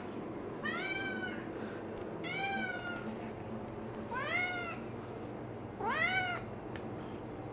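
Domestic cat meowing four times, short calls one to two seconds apart, each rising then falling in pitch; the last is the loudest and rises most steeply.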